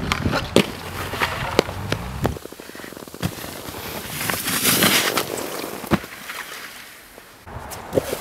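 Snowskate deck clacking and knocking as it hits a metal handrail and lands on packed snow: several sharp knocks a second or more apart, with a stretch of hissing slide in the middle.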